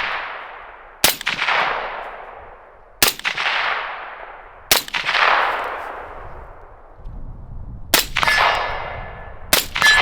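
Five single rifle shots fired one at a time, a second and a half to three seconds apart, each trailing off in a long echo. After the last two shots there is a thin metallic ring.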